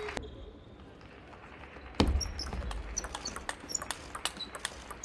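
Quiet hall hum for the first two seconds, then a sharp thump, then a table tennis rally: the celluloid ball clicking off the rackets and table in quick irregular strokes, with short high squeaks of shoes on the court floor.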